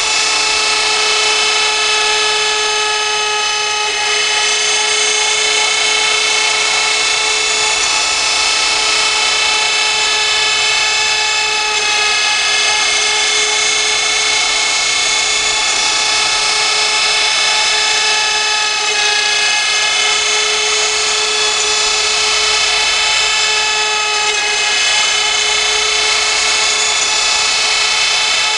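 CNC router spindle running at high speed and cutting, a steady high-pitched whine over cutting noise, with small shifts in pitch now and then.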